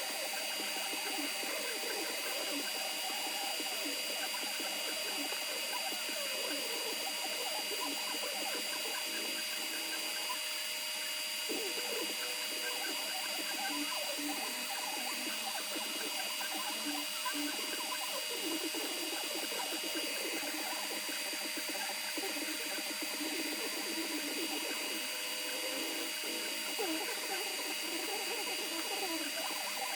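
Creality Ender 3 V2 3D printer running a print: its stepper motors whir in quick, constantly shifting pitches as the print head and bed move, over a steady fan hiss with two high steady tones.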